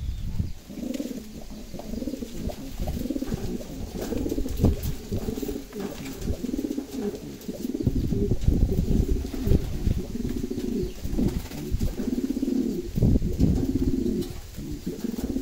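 Racing homer pigeons cooing over and over, a string of low rolling coos.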